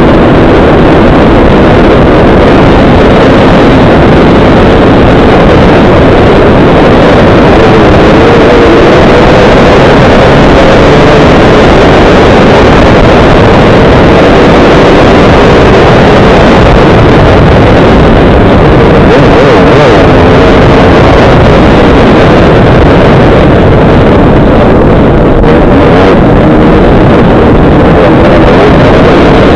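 Dirt bike engine running hard at close range, its pitch rising and falling with the throttle as it rides, with wind rushing over the microphone. Loud, with the level near the top of the scale.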